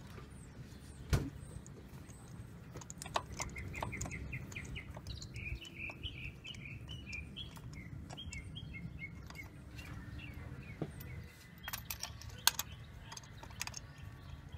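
Occasional light metallic clinks of a spark plug socket and extension as spark plugs are turned in by hand, over a low background rumble. A bird chirps a quick run of short high notes in the middle.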